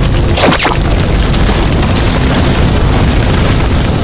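Loud added sound effects over background music: a continuous low booming rumble, with a sharp whoosh about half a second in.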